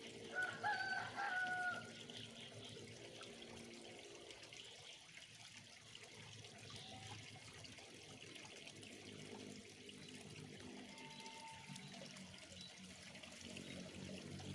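Koi splashing and churning at the surface of a pond, a faint steady trickling and slapping of water. A loud, drawn-out call cuts in from about half a second in and lasts over a second.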